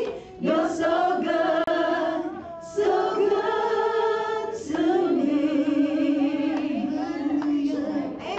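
Women's worship team singing a slow chorus in long held notes, in three phrases separated by short breaths.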